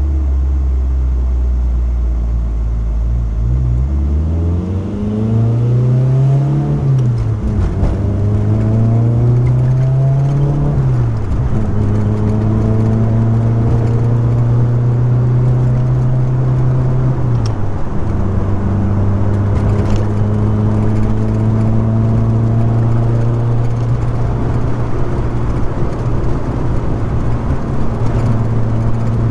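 Car engine running at low revs, then pulling up through the gears, its pitch rising and falling back at two upshifts. It settles into a steady cruise, with one more shift past the halfway point.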